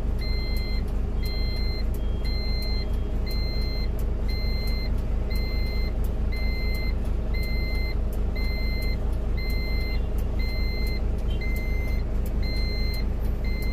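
Airport tow tractor's reversing alarm beeping steadily, about two beeps a second, over a continuous low engine drone.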